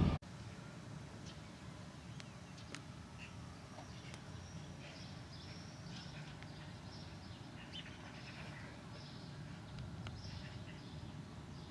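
Faint birds chirping, many short scattered calls, over a low steady background hum.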